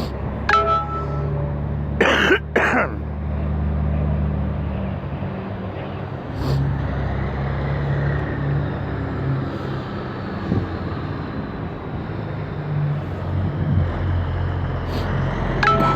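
Steady low rumble of an idling vehicle engine, with two short harsh sounds in quick succession about two seconds in.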